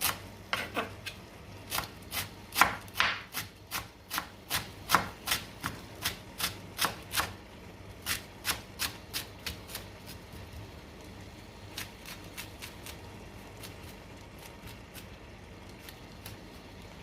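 Knife chopping fresh coriander on a cutting board: quick regular chops, about three a second, that slow and thin out after about ten seconds.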